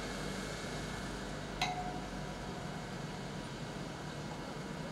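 Steady low drone of distant engines running, with a single sharp click and a short ring about a second and a half in.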